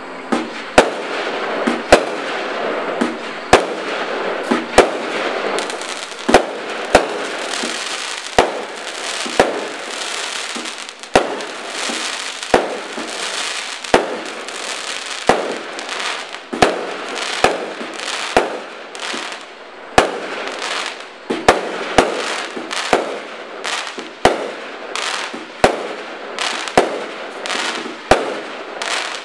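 Black Cat Apollo firework cake firing its shots in quick succession: a sharp bang every second or so, irregularly spaced, over a continuous crackle from the bursting stars.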